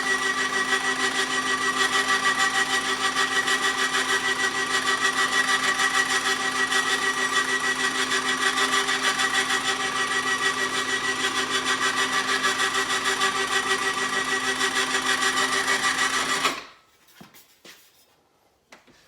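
Motor-driven bead roller running steadily, with a gear whine and a fast even pulsing, then shutting off abruptly about sixteen and a half seconds in, followed by a few faint knocks.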